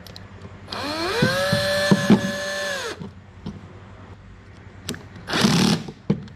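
Cordless drill-driver spinning up with a rising whine, then running steadily for about two seconds while driving a screw into a plastic housing cover, with a few ticks as it runs, and stopping about three seconds in. A short burst of noise comes near the end.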